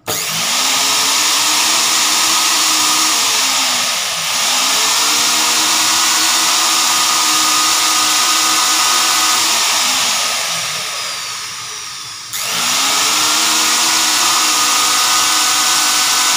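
Food processor's bare brushed electric motor running at speed with a steady whine. It spins up at switch-on, dips and recovers about four seconds in, winds down after about ten seconds, and starts again near twelve seconds. With its armature repaired it now runs fast and normal, where before it turned slowly and sparked heavily at the carbon brushes.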